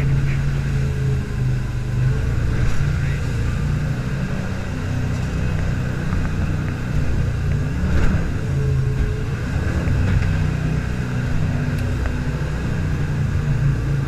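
Jet boat under way: its inboard engine drones steadily, the pitch shifting a little with the throttle, over the rush of water and wind.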